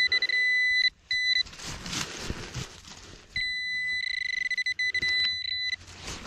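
A Nokta metal-detecting pinpointer gives a steady high-pitched beep tone while held over a buried metal target in the hole. The tone sounds for about a second, briefly again, then for a longer stretch from about halfway in, with short dropouts as the probe moves, and rustling of the leaves and soil between.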